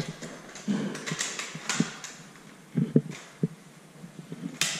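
Clear plastic food container handled and lifted, its thin plastic crackling and clicking irregularly, with a sharp click near the end.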